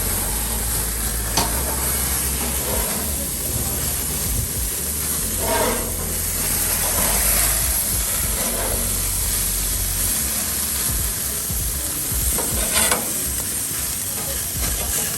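Burger patties topped with butter sizzling steadily on a barbecue grill, with a few short pops.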